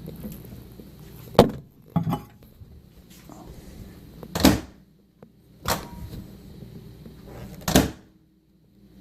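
Five separate knocks and clunks, several seconds apart: a microwave-safe bowl of water and egg being set into a microwave oven and the oven door being handled and shut.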